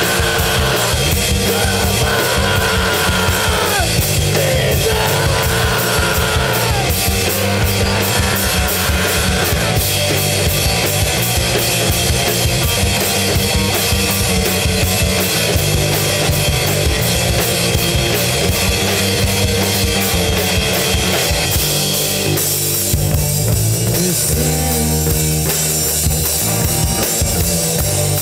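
Live grunge rock band playing loud: distorted electric guitar, bass guitar and a drum kit, with a screamed lead vocal over the first ten seconds or so, then the band carries on without singing. About three-quarters through the high end thins out, leaving guitar, bass and drums.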